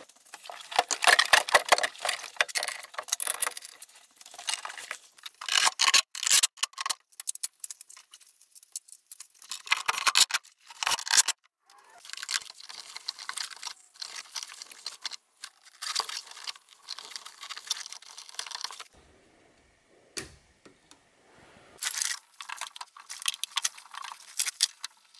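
Sped-up workshop sounds of hand tools and car parts being worked: dense runs of clicking and metallic rattling in bursts, with two short pauses.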